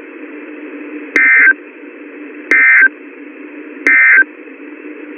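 Weather radio playing the Emergency Alert System end-of-message code: three short bursts of data tones about 1.4 s apart, the loudest sounds here, over a steady radio hiss that cuts off suddenly near the end. The bursts mark the end of a severe thunderstorm warning broadcast.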